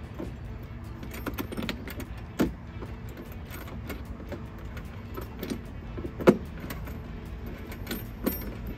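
Hands working a mesh mud flap into place against a truck's fender flare: scattered clicks and knocks, the loudest about six seconds in, over a steady low rumble.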